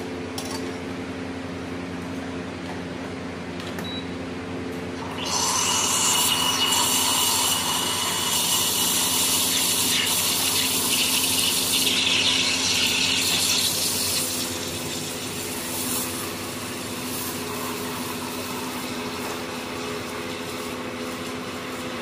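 Single-hole steam wand of a Cafelffe EM653-3C espresso machine hissing into a milk pitcher: the hiss comes in about five seconds in, is loudest for around nine seconds, then eases to a softer hiss. Under it the machine hums steadily throughout.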